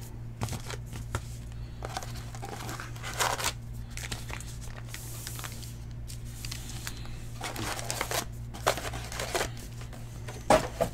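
Foil wrappers of 2019 Topps Archives baseball card packs crinkling and tearing in scattered short bursts as the packs are ripped open, over a steady low hum.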